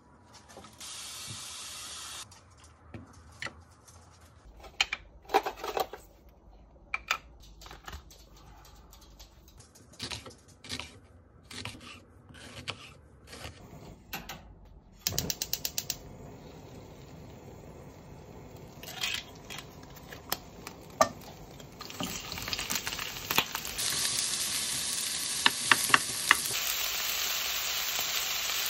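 A kitchen knife slices an onion on a wooden cutting board in scattered sharp knocks. About halfway through, a gas hob's igniter clicks rapidly and the burner lights with a steady hiss. In the last few seconds the sliced onions go into the hot pan and start to sizzle.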